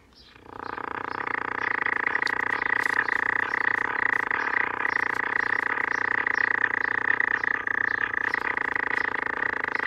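Faulty AA5 tube radio putting out a steady, buzzy multi-tone noise through its speaker, coming up over the first second or two and then holding level. It is the fault being chased: the repairer finds it a different symptom from what a bad filter capacitor would give.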